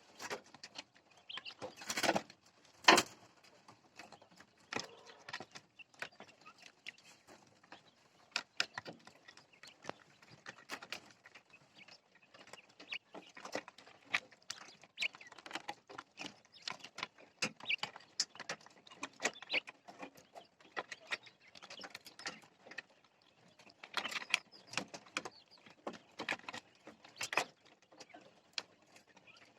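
A flock of jumbo Japanese quail pecking and scratching about their pen: a steady scatter of irregular small clicks and taps, with a couple of louder knocks about two and three seconds in.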